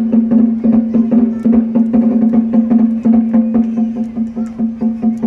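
Zen percussion ensemble playing: a quick, even beat of sharp drum or woodblock strikes, about five a second, over a steady low sustained tone.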